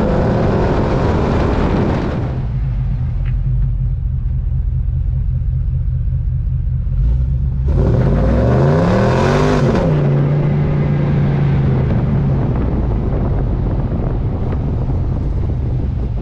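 Supercharged Ford 7.3-litre gas V8 in an F-250 pickup, running through long-tube headers and an MBRP exhaust. It comes down off a rev about two seconds in and idles, then is revved once about seven seconds in: the pitch climbs for about two seconds and falls back to a steady idle.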